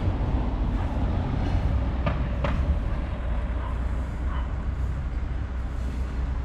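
Steady outdoor street ambience with a strong low rumble and hiss, and a few faint short sounds about two seconds in.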